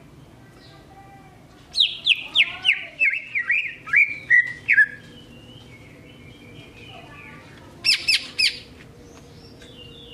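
Male greater green leafbird (cucak ijo) singing: a rapid run of loud, sharp whistled notes, each sliding downward, for about three seconds. A tight group of three sharp notes follows near the end, over quieter twittering.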